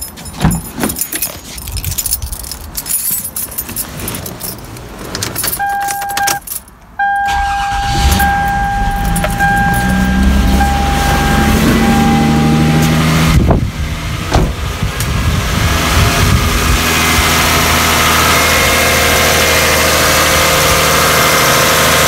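Toyota Camry's 1MZ-FE 3.0 L V6 started from cold, its revs rising into a fast cold idle and then running steadily. A dashboard warning chime beeps repeatedly as it starts, after a few seconds of key and door handling noises.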